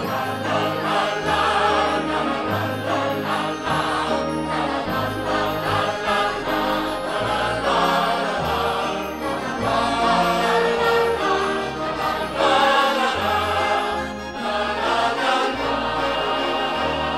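Musical-theatre finale from a cast recording: orchestra playing with a choir of voices singing.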